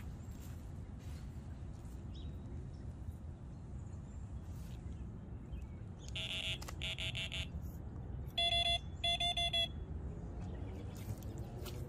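Rapid pulsed electronic beeping at a fixed pitch: two short bursts about six seconds in, then two louder ones near nine seconds. Under it runs a steady low outdoor rumble.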